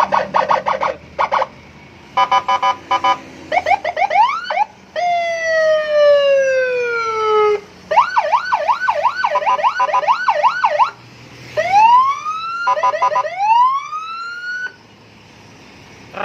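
Custom Senken electronic patwal (police-escort) siren cycling through its tones: rapid stuttering pulses, short rising whoops, one long falling tone, a fast up-and-down warble of about three cycles a second, then more rising whoops near the end. It is loud.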